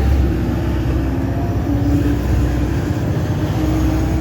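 Bus engine and drivetrain heard from inside the moving bus: a steady low drone with a faint whine whose pitch shifts slightly.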